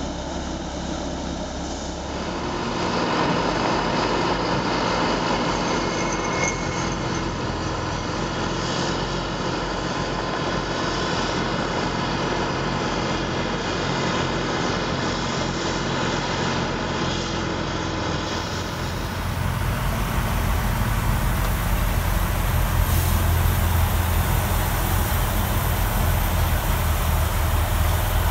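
Vohl VL-350 loader-mounted snow blower working, its 350 hp John Deere engine droning steadily under load with the rush of snow being thrown. The low rumble grows heavier about two-thirds of the way in.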